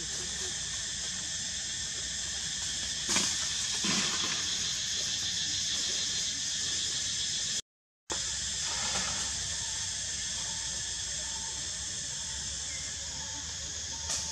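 Steady high-pitched hissing drone of forest ambience, with two brief rustles about three and four seconds in and a short cut to silence about halfway through.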